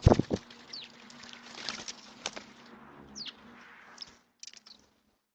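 Small birds at a feeder: a couple of sharp knocks at the start, then a few short chirps falling in pitch and scattered clicks over a faint low hum, all stopping about four seconds in.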